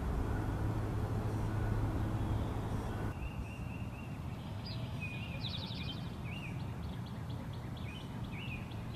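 Outdoor ambience with a steady low rumble for the first three seconds, then, after a cut, quieter ambience with small birds chirping and trilling in short repeated calls.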